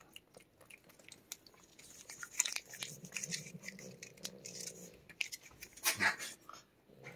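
A cat licking a lickable paste treat from a squeeze tube and smacking its lips: a run of small wet clicks and smacks, with louder ones about two and a half and six seconds in.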